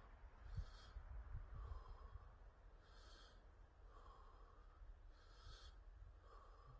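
Faint, slow, even breathing of a man sitting in ice-cold lake water, about three deliberate breaths, one every two seconds or so: the controlled breathing of a cold-water immersion.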